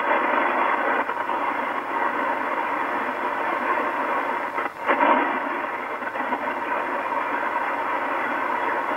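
Yaesu FRG-100 shortwave receiver giving out steady band static in upper sideband on 4870 kHz, a hiss held to a narrow voice-width passband, with no voice left on the channel after the numbers transmission's sign-off. About five seconds in the noise dips briefly, then surges louder for a moment.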